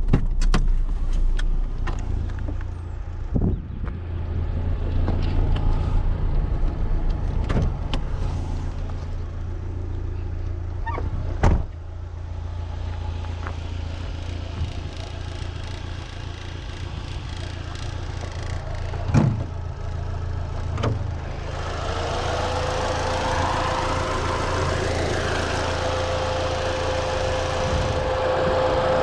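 Fiat Seicento Sporting's 1.1-litre four-cylinder petrol engine and tyres on the road, a steady low drone while driving, with scattered short knocks and two louder thumps. In the last third a hiss grows louder and a steady high whine joins it.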